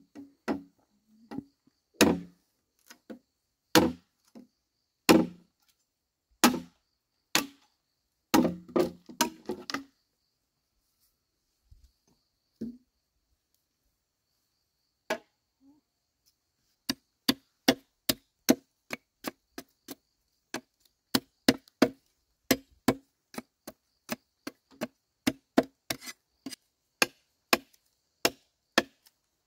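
Machete chopping green bamboo against a wooden log: single blows roughly a second apart, a pause of several seconds about a third of the way in, then quicker chops, two to three a second, through the second half.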